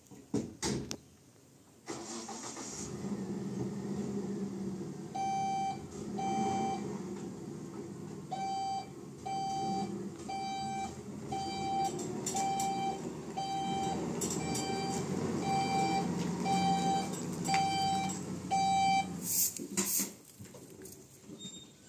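A motor running steadily with a rumble, and over it an electronic beeper sounding about once every 0.8 seconds, some fifteen beeps in all. A few clicks come before the motor starts and after it stops.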